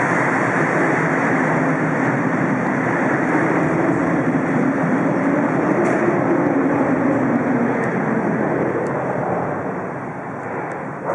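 Bombardier Toronto Rocket subway train running alongside the platform, a steady rumble that fades away over the last few seconds.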